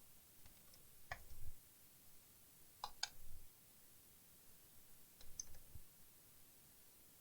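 Faint clicks and light knocks of a laptop's plastic case and small parts being handled during disassembly, in three short clusters about a second, three seconds and five seconds in.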